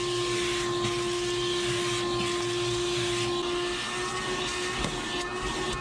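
Vacuum cleaner running, its hose nozzle sucking dust and straw off a tractor cab's floor mat and seat: a steady whine over rushing air, its pitch shifting slightly a little under four seconds in.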